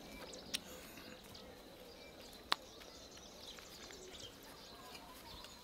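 Faint outdoor background with two short clicks: a small one about half a second in and a sharper, louder one about two and a half seconds in.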